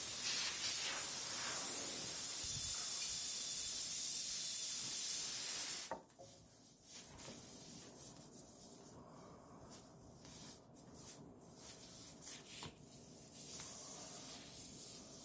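Steady hiss of air escaping from the punctured tyre, which cuts off abruptly about six seconds in. After that come quieter, irregular scraping and rubbing sounds from hand work with the tyre plug tools.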